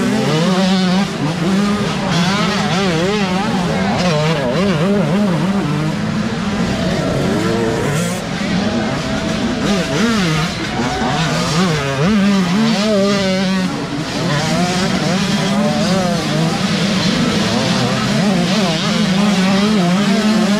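Several youth dirt bike engines revving at once, their pitches rising and falling quickly and overlapping as the riders work the throttle.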